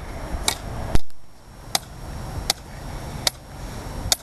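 Hammer blows driving a thin metal rod into the ground to make holes: six sharp, evenly paced strikes, about one every three quarters of a second, the second one the loudest.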